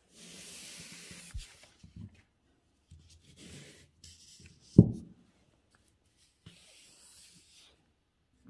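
A sheet of calligraphy paper being slid and shifted by hand across the desk, rustling in three short spells. A single dull thump comes about halfway through and is the loudest sound.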